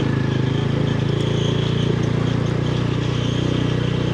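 TVS Apache RTR 180's single-cylinder engine running at a steady pace under way.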